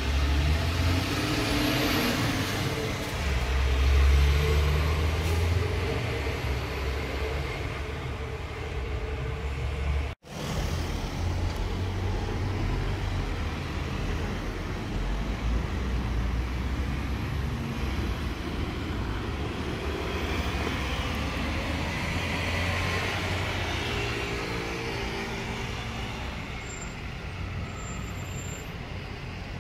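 A heavy MAN fire engine's diesel engine passing close by, loudest about four seconds in. After an abrupt cut near ten seconds, steady road traffic noise from cars going by.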